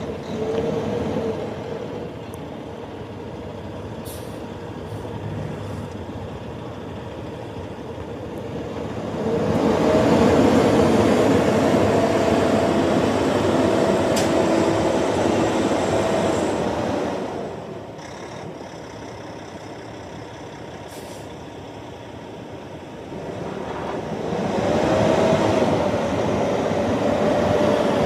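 Cummins diesel engine of a 2014 International ProStar semi tractor running as the truck drives across gravel. It grows markedly louder twice, for several seconds each time, as the truck pulls harder, and eases off in between.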